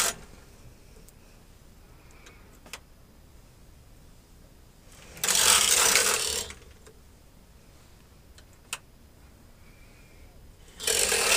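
Knitting machine carriage pushed across the metal needle bed, each pass a rattling rush of the needles running through the carriage, lasting about a second and a half. There is one pass about five seconds in and another near the end. These are short-row passes in partial knitting, with the yarn automatically wrapping around the held needles. Two sharp single clicks come between the passes.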